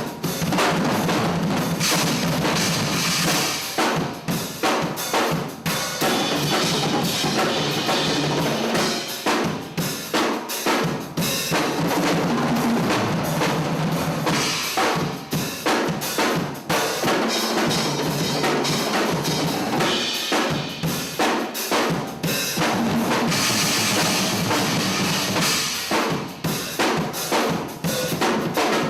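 Drum kit played in a busy, continuous groove: bass drum, snare and rimshots under dense strikes, with stretches of loud cymbal wash early on and again near the end.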